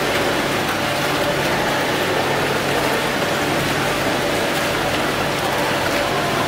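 Foaming water-fountain jet splashing steadily into its basin, an even rushing spatter with no breaks.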